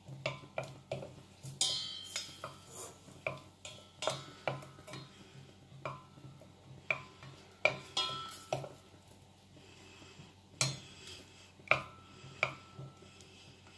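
Wooden spatula stirring melting butter in a stainless-steel saucepan, knocking and scraping against the pan's bottom and sides in irregular taps, a few with a short metallic ring.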